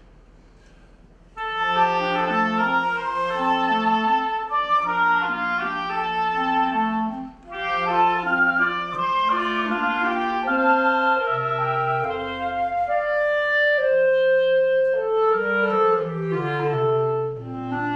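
A woodwind quartet of saxophones and a bass clarinet playing a piece in close harmony. After a short pause, all the parts come in together about a second and a half in, with a brief break about halfway through.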